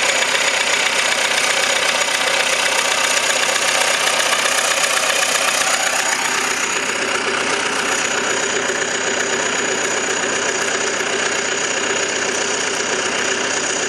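John Deere tractor engine running steadily, heard close up from beside its hood; the sound eases off slightly about six seconds in.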